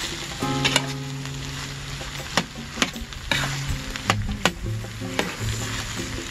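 Chopped chicken sisig frying in a stainless-steel electric skillet: a steady sizzle while a metal spoon stirs it, scraping and striking the pan with several sharp clinks.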